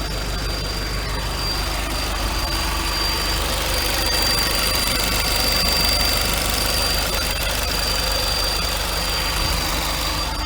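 Volkswagen Scirocco 1.4 TSI turbocharged four-cylinder petrol engine idling steadily, with a thin, steady high-pitched whine over it.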